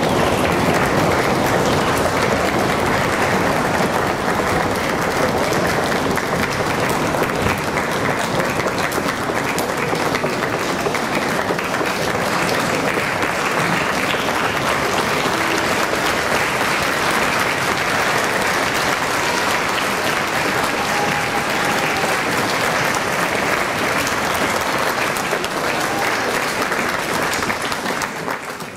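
Audience applauding steadily, many hands clapping at once, fading out near the end.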